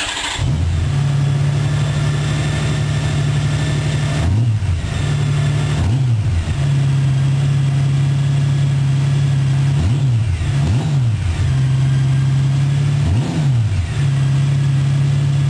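Honda GL1800 Gold Wing's flat-six engine with AlleyKat aftermarket mufflers, catching about half a second in and idling steadily. The throttle is blipped in about five quick revs, each rising and falling back to idle.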